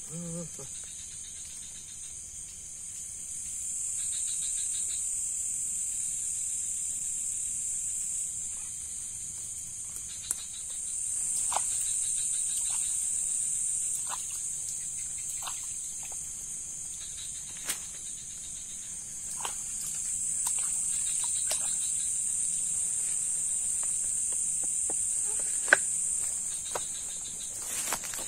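Night insect chorus: a steady high-pitched drone that swells and fades in long slow waves, with a softer chirring beneath it and a few short, sharp clicks.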